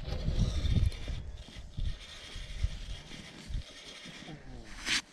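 Rod and spinning reel being handled with gloved hands, giving knocks and rustles and a short whirring turn of the reel near the end, over low wind buffeting on the microphone.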